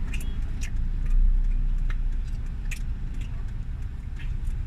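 Steady low rumble of a car cabin, with scattered small clicks and crinkles from chewing and the burger's plastic wrapper.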